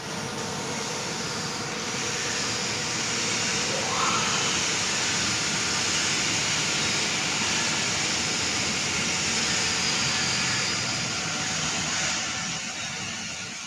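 Steady whooshing machinery noise from a powered-up CNC lathe with a Fanuc Series 0i-TD control, with a faint, brief rising tone about four seconds in.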